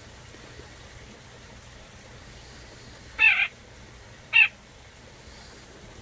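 Young white-breasted nuthatch giving two short calls a little over a second apart, the first slightly longer, about halfway through.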